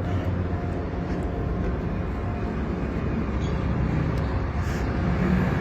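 Steady low rumble of running engines and heavy machinery, with an even hum and no distinct events.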